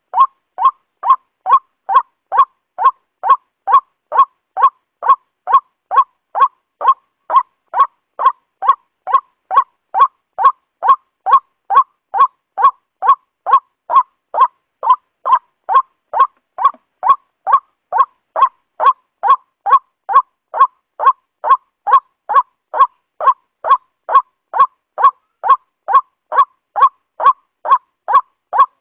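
Waterhen call: a short, pitched note repeated about twice a second at a perfectly even, unbroken pace, like a looped recording.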